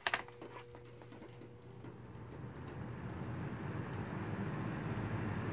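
Lasko Cyclone fan switched on at its low setting: a click at the start, then the motor's hum and the rush of air building steadily as the blades spin up.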